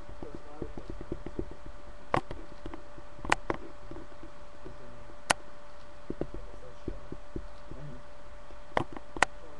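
Scattered sharp clicks, five in all, over faint low knocks and a steady electrical hum from a webcam microphone.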